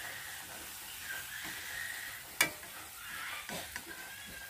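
Crickets simmering in fish-sauce glaze in a wok over low heat: a quiet, steady sizzle and bubble. A single sharp click sounds about halfway through.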